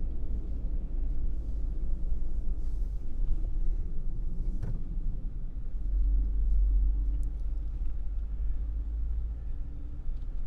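Steady low rumble of a vehicle driving along a campground road, heard from inside the vehicle, with a single sharp knock about four and a half seconds in.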